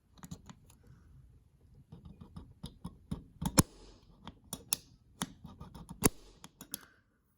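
Irregular clicks, taps and scrapes of a small die-cast toy car and tools being handled on a work surface as the car is readied for taking apart. The clicks grow denser and sharper through the middle and stop shortly before the end.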